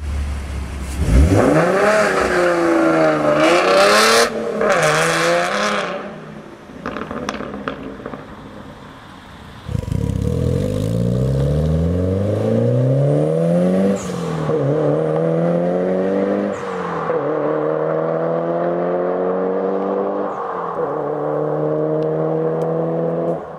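2011 Ford Mustang V6 with a Roush exhaust accelerating hard: the revs climb through two upshifts, then the sound dies away. Then a Mitsubishi Lancer Evolution VI's turbocharged four-cylinder pulls hard through the gears, the revs rising and falling back at each of three upshifts.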